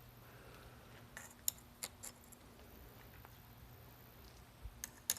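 A few faint, light metallic clicks and clinks of small metal parts being handled, as sintered metal bicycle brake pads are set up on a bench vise.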